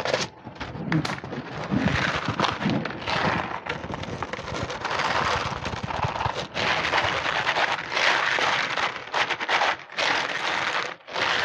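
Plastic bag crinkling and crackling in a hand as raw meat is tipped out of it, a dense run of crackles with brief dips.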